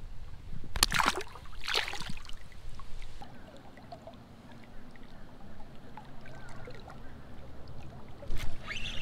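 Water splashing briefly twice, about one and two seconds in, as a smallmouth bass is let back into the river. Then the steady low wash of the river current.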